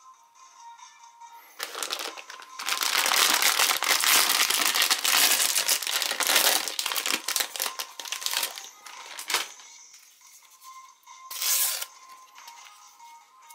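Crinkly plastic wrapper of a packaged croissant being torn open and handled: a long stretch of loud crinkling and tearing that dies away about two-thirds of the way through. Near the end comes a short rustle as the paper backing is peeled off a cardboard collectible cap.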